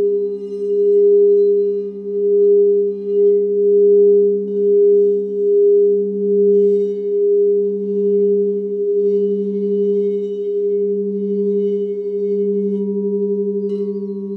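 Sound-healing drone of steady pure tones at the 432 Hz and 528 Hz healing frequencies. A bright tone holds over a lower hum that swells and fades about once every second and a half, with faint high shimmering notes scattered over it.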